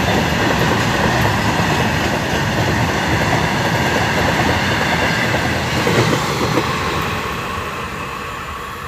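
Indian Railways BOXNHL open freight wagons rolling past at speed, a steady rumble and clatter of wheels on the rails. It fades over the last couple of seconds as the end of the train draws away.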